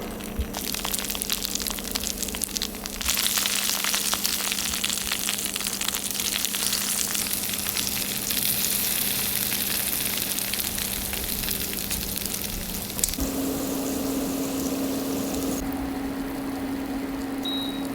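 A whole garlic bulb sizzling in olive oil in an aluminium-foil cup in a frying pan over medium heat, a steady crackling sizzle that grows louder about three seconds in. A steady low hum runs underneath and rises slightly in pitch about thirteen seconds in.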